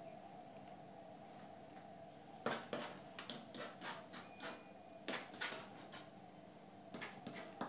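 A palette knife dabbing and scraping paint onto a stretched canvas: a run of short scratchy strokes, about three a second, starting a couple of seconds in, with a few more near the end. A steady faint hum lies under it.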